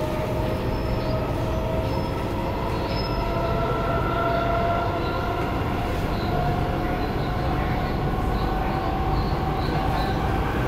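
Kawasaki-Nippon Sharyo C751B metro train heard from inside the car: the whine of its IGBT-VVVF traction inverter and motors slowly rises in pitch as the train gathers speed. A steady rumble of wheels on rail runs underneath.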